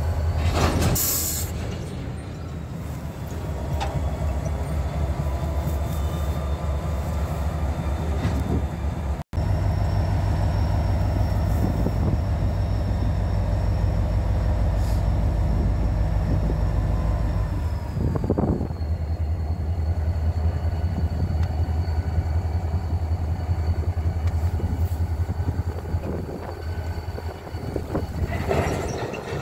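Norfolk Southern six-axle diesel locomotive running under power as it pulls its freight train away: a deep, throbbing engine sound with a steady high whine. About two-thirds of the way through, the whine drops in pitch and the engine note eases. A brief hiss comes near the start.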